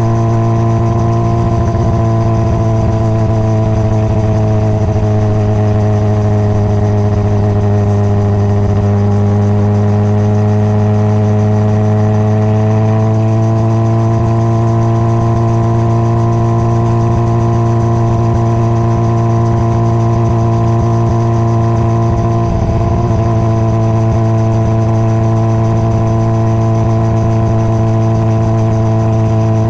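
Honda CBR600RR's inline-four engine running steadily at a moderate speed on the move, its pitch sagging a little and then climbing back about a third of the way through, with a brief break in the sound a little past two-thirds through.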